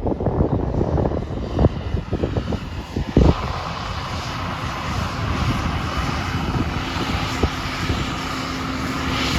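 Engine of an approaching farm tractor running steadily. Wind buffets the microphone for the first three seconds, with a sharp knock about three seconds in.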